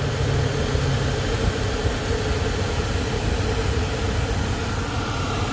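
Modified 3500 BTU marine air-conditioning unit running on 12 V through an inverter, giving a steady hum with its fan blowing and the compressor not yet started.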